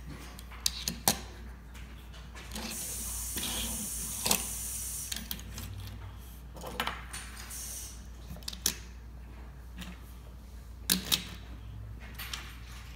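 Die-cast toy cars being set down and pushed together on a tabletop: scattered sharp clicks and knocks of metal and plastic, with a couple of seconds of rustling hiss a few seconds in.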